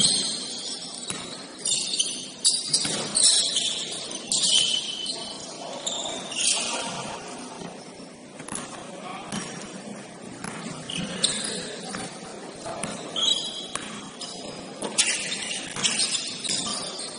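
Basketball game in play on an indoor court: sneakers squeaking in short, irregular high squeals, sharp taps of the ball, and a few players' voices.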